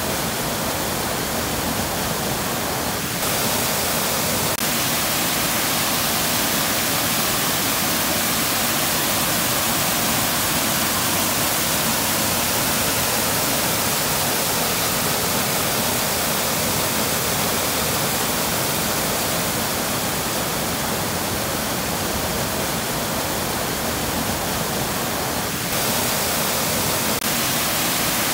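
Steady, even rush of a waterfall, with no tones or voices in it. Its level steps up slightly about three seconds in and again near the end.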